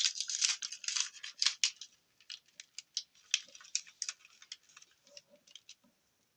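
Plastic blister packaging of a carded action figure being pried open and handled: a dense run of crackles and clicks for about the first two seconds, then scattered lighter clicks.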